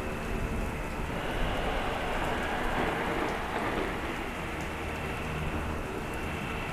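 Heavy rain with a swell of thunder from about a second in, laid over a vacuum cleaner's steady motor hum.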